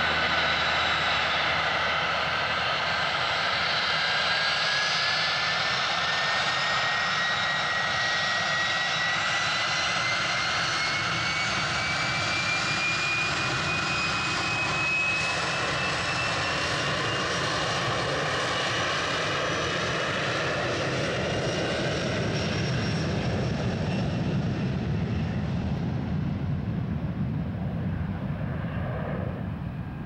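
Boeing 737-300's two CFM56-3 turbofan engines at takeoff power during the takeoff roll: loud, steady jet engine noise with a whine that rises in pitch over the first half, fading a little near the end as the jet moves away.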